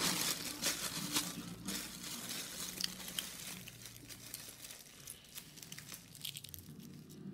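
Shell of a hard-boiled egg crackling and crinkling as it is cracked and peeled by hand: a dense run of small crackles at first, thinning to scattered light clicks.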